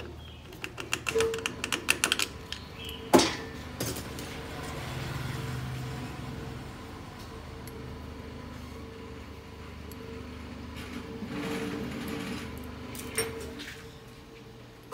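Small metal parts clicking and clinking as they are handled and fitted on a lathe's three-jaw chuck, with a quick run of clicks early and a sharp metallic knock about three seconds in, followed by softer handling noise over a steady hum.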